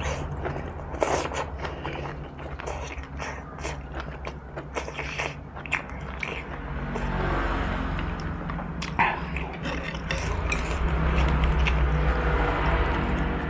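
Close-miked chewing and wet mouth sounds of eating instant noodles, with chopsticks and a metal spoon clicking and scraping in a ceramic bowl, over a steady low hum.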